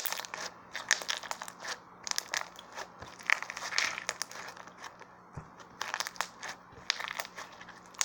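Slime being squished and worked in the hands, giving a run of irregular small clicks and crackles.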